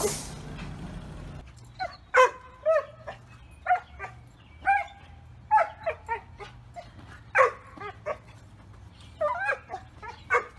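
A dog barking in short, high-pitched yips, repeated irregularly about one or two times a second, starting a second or two in.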